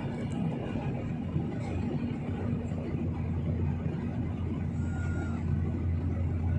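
Steady drone of jet engines and rushing air inside an airliner cabin in cruise, with a constant low hum.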